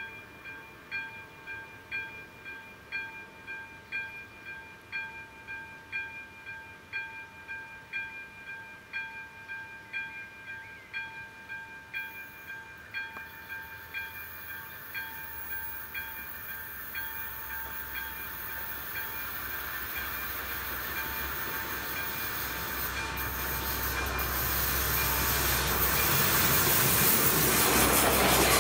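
Level-crossing warning bell ringing about once a second as the crossing lights flash, while a ČD class 844 RegioShark diesel railcar approaches. The train's rumble and rail noise grow steadily over the second half and drown out the bell as the railcar runs over the crossing near the end.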